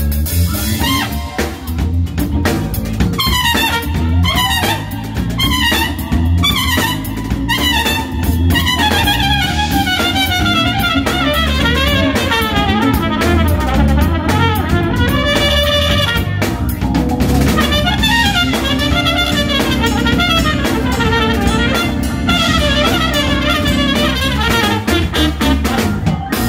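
Trumpet playing a jazz solo backed by a drum kit, with repeated falling runs and glides in the melody.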